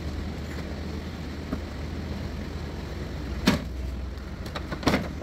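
Two sharp plastic snaps about a second and a half apart, over a steady low hum: the 2015 Hyundai Elantra's front bumper cover coming free at its clips as the bumper skin is pulled away from the headlight.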